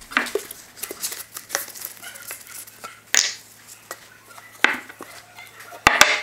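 Scattered knocks and clicks of a metal Osmo TopOil tin being handled, lifted and set back down on a wooden workbench, with the loudest, a quick double knock, near the end.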